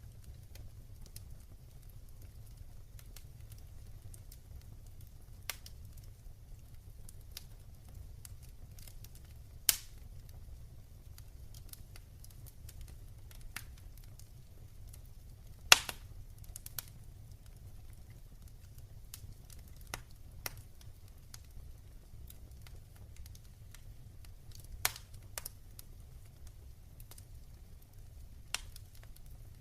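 Fire burning in a fireplace, crackling with irregular sharp pops over a low steady rumble; the loudest pops come about ten and sixteen seconds in.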